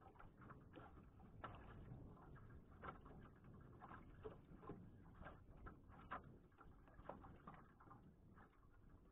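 Near silence with faint, irregular small ticks and taps, several a second.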